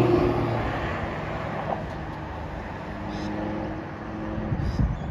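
A Lamborghini Gallardo's V10 engine driving past and fading away, leaving road traffic noise. A second car's engine hum comes up and passes near the end.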